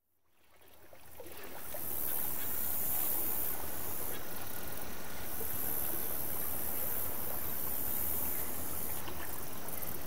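Reed-marsh ambience fading in from silence over about two seconds, then a steady outdoor hiss with a high, shimmering band that drops out briefly a couple of times.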